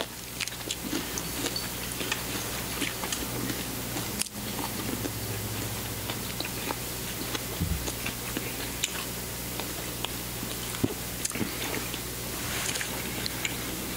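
Close-miked eating sounds: chewing, biting and wet mouth clicks as two people eat fried chicken wings and cherry tomatoes. Under them runs a steady low hum.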